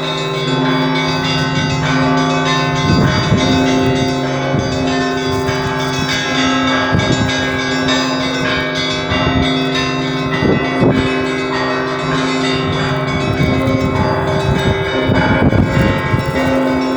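Russian Orthodox church bells ringing together: the belfry of the lower Church of the Transfiguration and the great blagovestnik bell of the Cathedral of Christ the Saviour. Many bells are struck over and over, their tones ringing on and overlapping, with deep strokes coming every two to four seconds.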